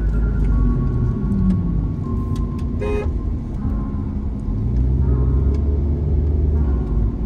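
Road noise of a moving car, a steady low rumble of engine and tyres, with a brief car horn toot about three seconds in.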